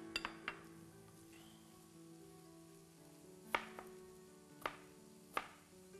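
Kitchen knife chopping apple on a cutting board: a few quick knocks of the blade on the board at the start, then three single knocks about a second apart in the second half, over soft background music.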